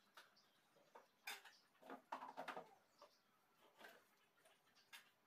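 Faint clinks and knocks of dishes and utensils being moved about on a dining table, with a short run of louder clatter near the middle.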